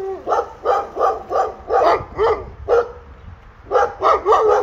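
Dog barking in a rapid series of short barks, pausing briefly about three seconds in before barking again.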